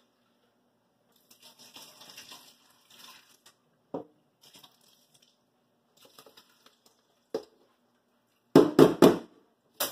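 Rinse water and wet brown rice being drained from a metal pot through a small mesh strainer into a stainless-steel sink: faint trickling and shifting grains with a couple of light clicks, then a quick run of loud knocks near the end.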